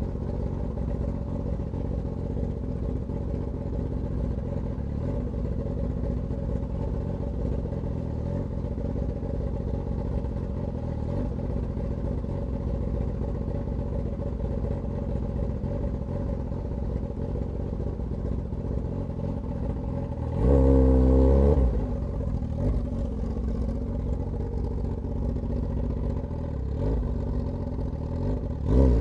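Suzuki GSX-S1000's straight-piped inline-four exhaust running steadily at low revs, with one brief rev about two-thirds of the way through. The revs climb again right at the end.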